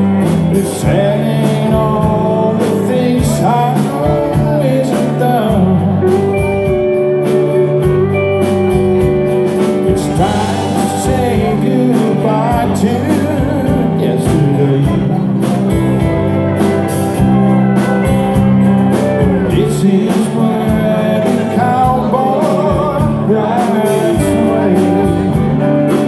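Live band playing a song with a singing voice, guitar, bass and a steady drum beat.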